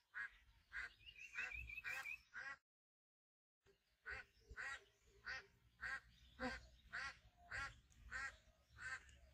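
Short quack-like calls repeated at an even pace, about one every half second or so. A brief high trill comes in during the first two seconds, and the sound cuts out completely for about a second partway through.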